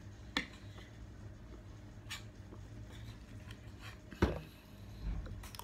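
Quiet mealtime sounds at a table: a few light clicks and knocks of tableware and food being handled, the loudest knock about four seconds in, over a low steady hum.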